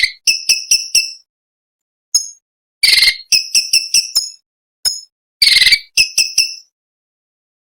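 Orange-bellied leafbird (cucak cungkok) singing: three phrases, each opening with a harsh, buzzy burst and running on into a quick string of short, sharp, high ringing notes, with single chips between the phrases.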